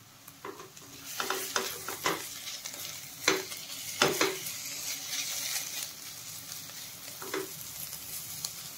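Chopped onions with crushed ginger and garlic sizzling in oil in a kadai on a low flame, starting about a second in, while a spatula stirs them. A few sharper scrapes or knocks of the spatula against the pan stand out, three of them loudest.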